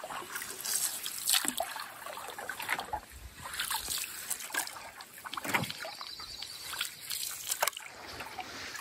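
Canoe paddle strokes in calm water: the blades dip and pull with soft splashes, and water trickles and drips off them between strokes at an uneven pace.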